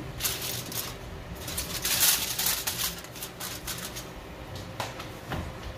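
Aluminum foil crinkling as it is pressed and tucked down over a baking pan, in irregular crackling bursts, the loudest about two seconds in, with a few sharp clicks near the end.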